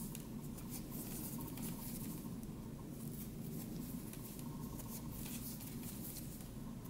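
Faint, irregular clicks and scrapes of knitting needles as stitches are knit and lifted over during a cast-off, over a low steady hum.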